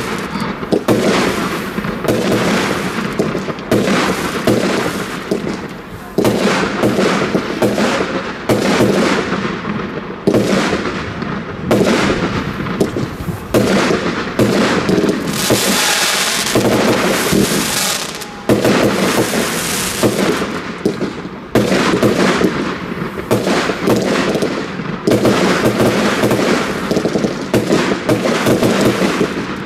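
Rubro Event Immortal Gold fireworks battery firing shot after shot, with sharp launches and bursts about once a second. Around the middle there is a stretch of dense hissing crackle.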